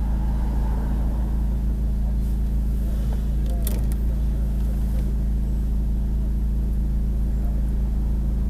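A car's engine and road noise while driving, a steady low rumble, with a brief sharp sound about three and a half seconds in.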